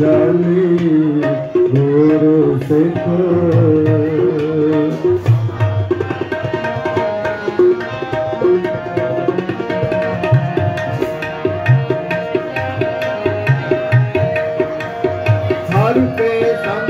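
Sikh kirtan: devotional singing over tabla and steady held tones. About five seconds in the singing stops and the tabla plays on in a regular rhythm under the held tones.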